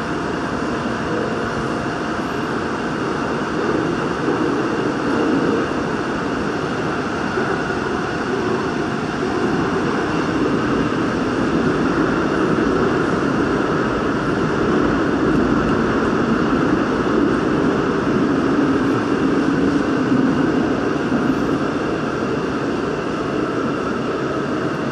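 Daegu Metro Line 2 subway train running through a tunnel: a steady rumble of wheels on rail and running noise, with a faint steady high whine over it.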